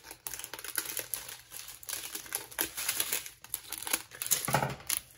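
Small clear plastic bags of diamond-painting drills crinkling and rustling as they are handled and sorted, in quick irregular crackles.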